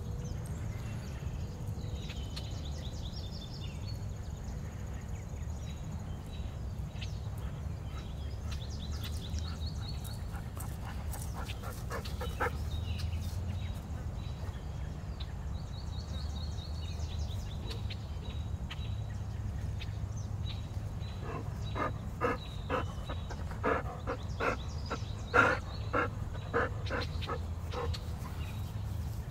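A dog barking in a run of short barks, starting about twenty seconds in and loudest a few seconds later, over a steady low rumble, with short high chirping trills now and then.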